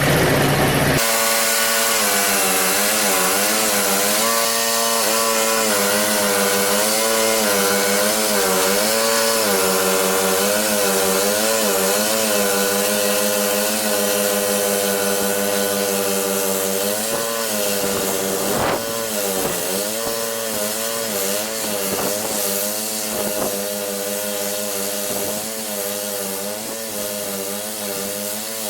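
Snowblower's small gas engine running, its speed repeatedly dipping and picking up again in a wavering pitch. A single sharp knock is heard about two-thirds of the way through.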